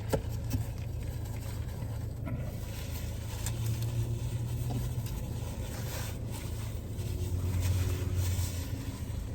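Faint eating sounds, a few soft chewing and food-handling noises, over a steady low hum.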